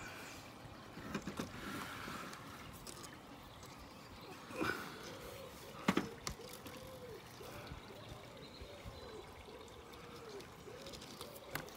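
Rope being hauled up hand over hand to lift a home-made antenna, with handling and rubbing noises and a sharp knock about six seconds in. Through the second half comes a repeated short squeak, about one every half second.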